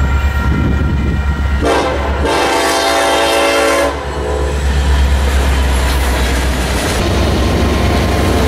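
Union Pacific diesel freight locomotive sounding its multi-tone air horn once for about two seconds, over the steady low rumble of its diesel engine and the passing train.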